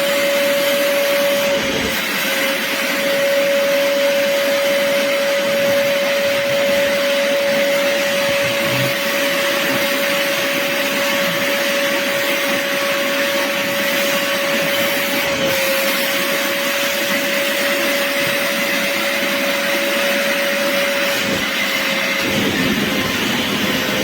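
BISSELL Little Green portable upholstery cleaner's suction motor running, a steady whine over rushing air. The pitch dips briefly a few times.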